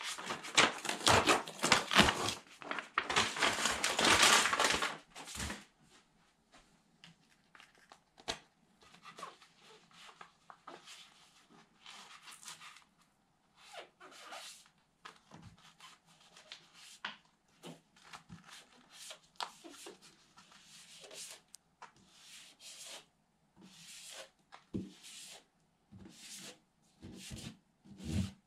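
The backing sheet of a large self-adhesive wall sticker being peeled away, loudest over the first five seconds or so. Then come scattered short rustles of the sheet and hands rubbing the sticker down onto the wall.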